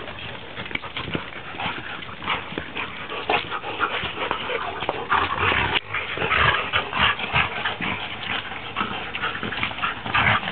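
Three dogs tussling over a ball in rough play: continuous growling with scuffling and jostling.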